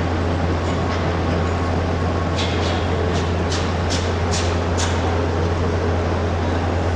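Steady low rumble of motor-show hall background noise, with a run of about seven sharp clicks in the middle.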